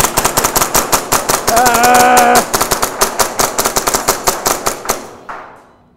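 Tokyo Marui Hi Capa 5.1 gas blowback airsoft pistols fired as fast as the trigger can be pulled: a rapid string of sharp shots, about nine a second, for some five seconds. A held shout from the shooter comes in about a second and a half in, and the firing stops and fades out about five seconds in.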